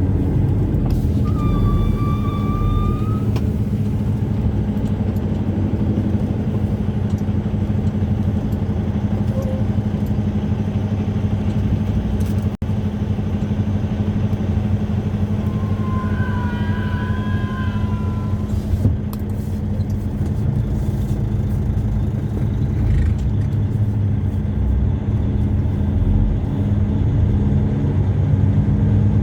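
Semi truck driving, heard from inside the cab: a steady low engine drone with road noise. Two brief high-pitched tones sound over it, about two seconds in and again around sixteen seconds in.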